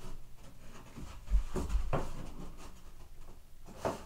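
A few light knocks and rubs as a piece of MDF door casing is pressed into place against the wall and the top of the door jamb. The sharpest knock comes about a second and a half in, and another comes near the end.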